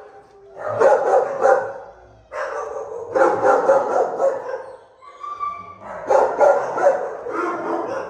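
Dogs barking in three rapid runs, with a short high whine in the gap about five seconds in.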